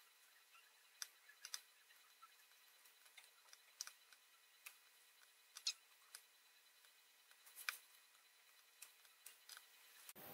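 Near silence broken by faint, irregular small clicks and ticks, about fifteen of them, from hand-soldering surface-mount LEDs on a small circuit board.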